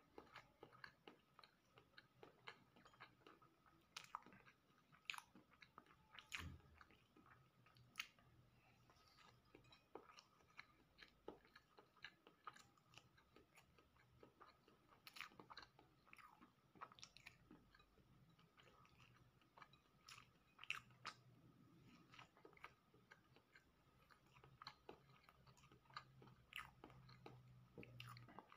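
Close-miked chewing of a soft cheese roll topped with grated cheese. It comes through as quiet, irregular mouth clicks and smacks that go on throughout.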